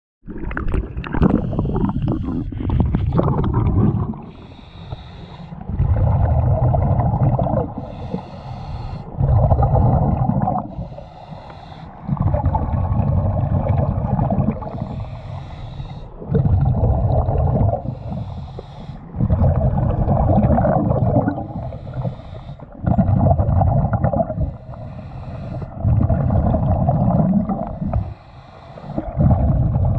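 A diver breathing through a regulator underwater: loud bursts of exhaled bubbles rumbling for about two seconds, alternating with quieter hissing inhales, a breath every three to four seconds. Water splashes in the first few seconds as the camera goes under.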